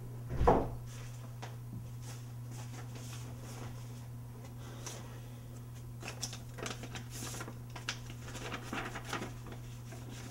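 A single loud thump about half a second in, then a run of small clicks and rustles of something being handled in the hands, over a steady low electrical hum.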